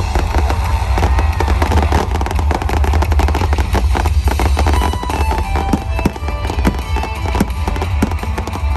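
Fireworks bursting in quick, irregular succession, with many sharp bangs and crackles, over loud pop music.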